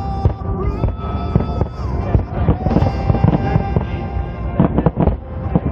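Fireworks display bursting in quick, irregular succession, many sharp bangs and pops, over music with long held notes.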